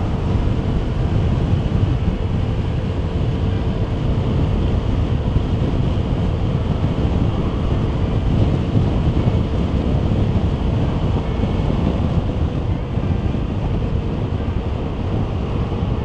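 Steady, loud wind and road noise inside a helmet on a Vespa GTS 300 scooter cruising at about 55 mph with no flyscreen fitted, measuring about 70 to 75 dB at the ear. A faint steady hum under it fades out about two-thirds of the way through.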